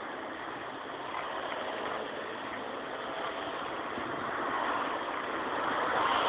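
Steady noise of street traffic, slowly growing louder.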